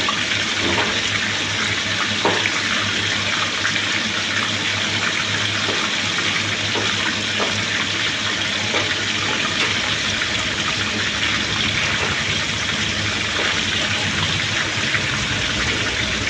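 Stuffed chicken potli parcels deep-frying in hot oil: a steady, dense sizzle with scattered small crackles, over a low steady hum.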